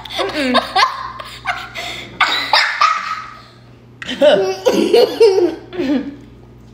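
A girl laughing hard in bursts, with a short lull about three seconds in before another round of laughter.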